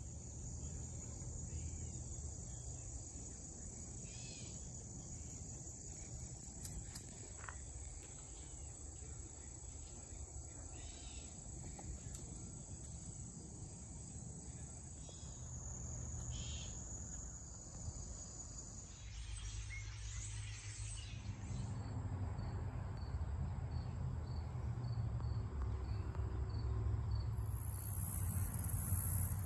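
Insects chirring in a steady, high, even trill over a low rumble. About two-thirds of the way in the trill fades, a faint slow series of ticks takes over, and near the end a louder, very high hiss comes in.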